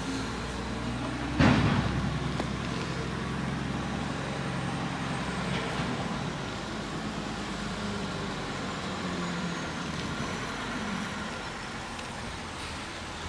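Garbage truck engine running steadily, with one loud bang about a second and a half in.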